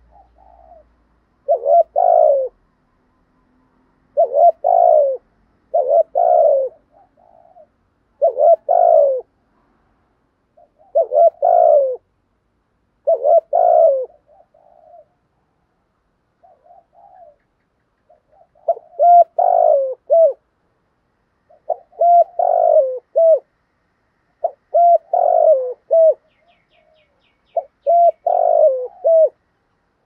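Spotted dove cooing, short phrases of two or three coos repeated every two to three seconds, with a pause of a few seconds about halfway.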